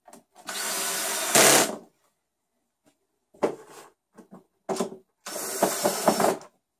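Ryobi cordless drill-driver running screws into a plastic trap housing. A run of about a second gets louder near its end as the screw seats, then come a couple of short bursts and a final run of about a second.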